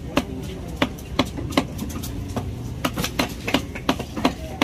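Knife chopping raw tuna into chunks on a wooden chopping block: a rapid run of sharp knocks, about two to three a second, coming quicker in the second half.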